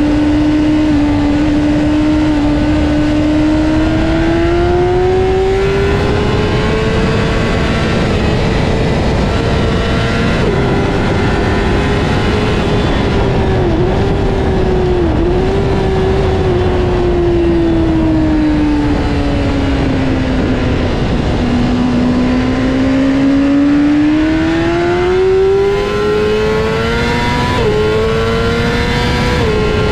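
Honda CBR600RR's inline-four engine revving hard under way. The pitch climbs, wavers with two brief dips around halfway, sinks in a slower stretch, then climbs again with two quick upshifts near the end. Steady wind rush runs underneath.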